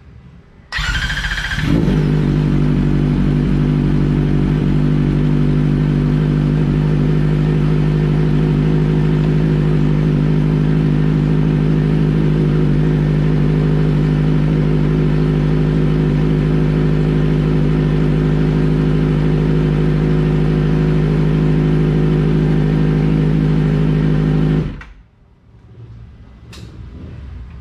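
Kawasaki Ninja ZX-4RR's 399 cc inline-four cranked on the starter, catching about two seconds in. It then idles steadily through a freshly fitted SC Project slip-on exhaust, loud and unrevved, until it is switched off near the end.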